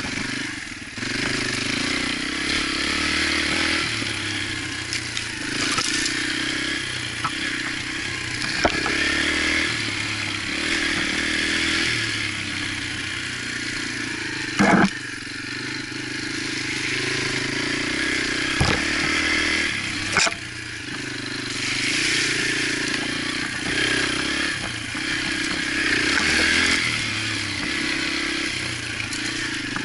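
Yamaha TTR125 dirt bike's small single-cylinder four-stroke engine running on the trail, revving up and easing off again and again. A few sharp knocks cut through, the loudest about halfway through.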